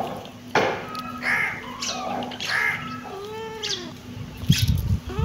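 Kittens meowing: a string of short, high-pitched mews about every half second to second, with a longer arching mew around three seconds in. Low thumps come in near the end.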